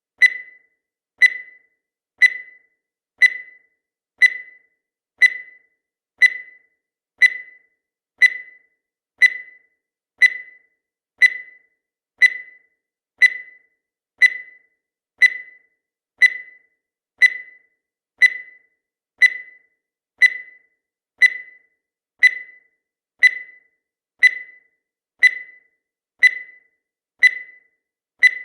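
Countdown timer sound effect: a short, high-pitched electronic beep once every second, each with a sharp start and quick fade, in a steady regular rhythm.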